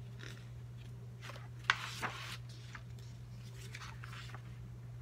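Faint rustling of paper cards being handled, with two light clicks about halfway through, over a low steady hum.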